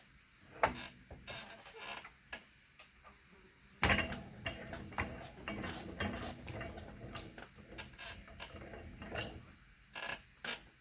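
Irregular metallic clicks and knocks of steel parts being handled and set in a crankshaft-pressing jig, with one louder knock about four seconds in.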